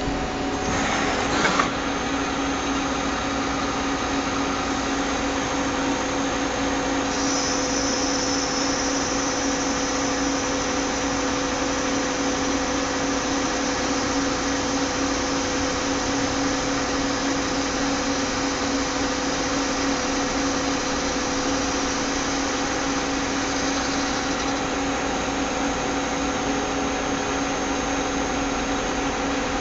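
CNC machine running steadily during machining: a constant mechanical hum and noise with a few fixed tones. A high whine joins about a quarter of the way in and drops away about four-fifths of the way through, after a brief louder surge about a second in.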